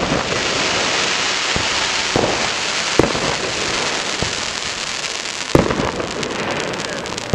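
Aerial firework shells bursting: a steady, dense rushing noise like rain from the burning stars, broken by several sharp bangs, the loudest about three seconds and five and a half seconds in.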